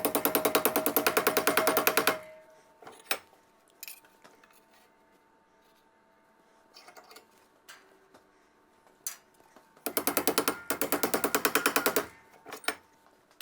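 A power tool hammering in rapid, even strokes, about a dozen a second, in two bursts of about two seconds each: one at the start and one near the end. A few scattered knocks and clicks of handling come in the quiet between.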